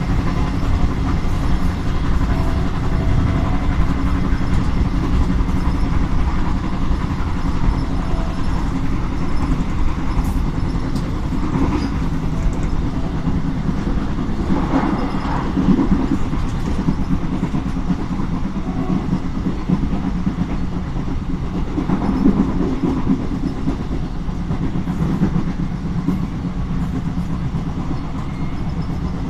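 Locomotive-hauled train running along the line: a steady rumble of wheels on rails, with a few louder swells of rail noise.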